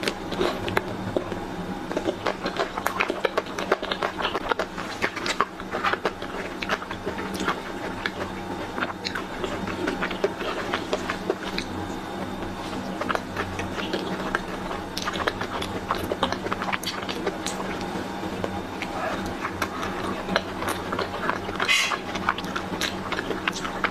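Close-miked eating of ice cream: wet chewing and mouth clicks and smacks, many short clicks following each other through the whole stretch.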